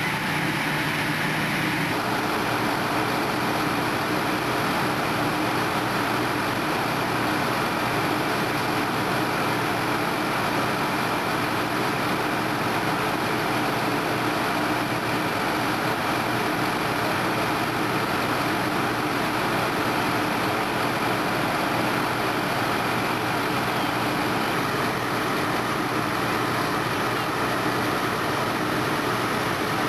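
Fire engine's diesel engine running steadily while it pumps water to its hose lines: an unbroken mechanical drone with a few steady tones.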